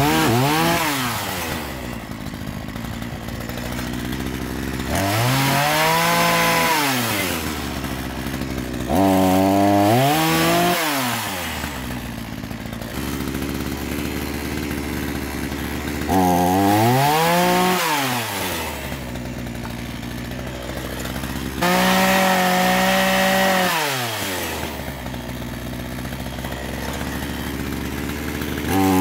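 Petrol two-stroke chainsaw revving up and cutting through a branch again and again, about every five to seven seconds, its pitch sagging under load and then dropping back to idle between cuts.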